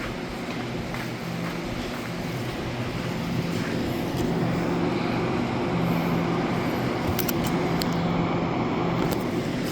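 Taiwan Railways EMU800 electric train running, a steady rumble with a low hum that grows louder about three seconds in, with a few sharp clicks near the end.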